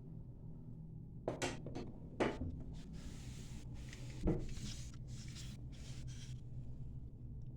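A few sharp knocks and clicks of hard parts being handled at a toilet tank, then a patchy hiss or rustle lasting about three seconds, over a low steady hum.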